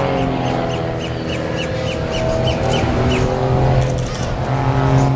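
Christen Eagle aerobatic biplane's engine and two-bladed propeller droning in flight, the pitch shifting down and then back up as the plane dives and pulls out. A series of short high chirps, about three a second, runs through the first half.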